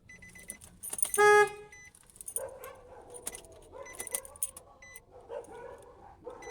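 Car keys jangling and clicking at the ignition of a 2008 Nissan Sentra with the engine off, with short high electronic beeps. A brief loud tone sounds about a second in.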